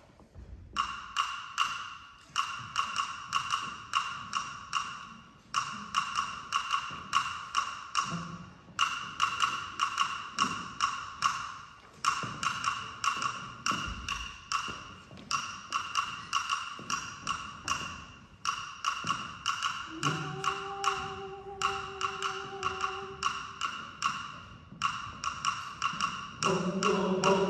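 Hand percussion clicking out a fast Latin rhythm in repeated short phrases with brief gaps between them, the dry, sharp strikes of a wooden instrument. A single note is held for about three seconds about two-thirds through, and the choir starts singing near the end.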